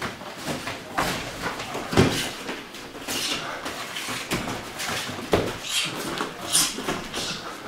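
Boxing gloves landing in light Muay Thai sparring: irregular dull thuds, the loudest about two seconds in, with scuffs and short hissing sounds between them.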